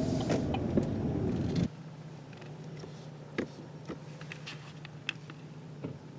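Inside a car: road noise while driving, cut off abruptly less than two seconds in. Then a quieter, steady low engine hum follows, with scattered light ticks of raindrops.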